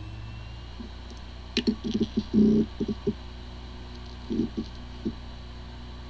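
Hard drive with corrupted firmware running: a steady spindle hum with short bursts of head-seek chatter, about one and a half to three seconds in and again around four and a half seconds. It sounds like a healthy drive, though the firmware corruption keeps the computer from detecting it.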